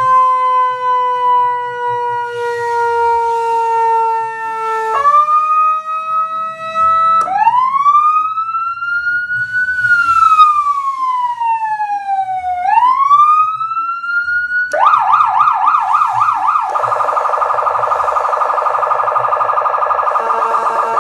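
Senken 200-watt electronic siren horn cycling through its tones. It gives a slow falling tone, then long rising and falling wail sweeps. About three-quarters through it switches to a fast warble and then a rapid pulsing tone.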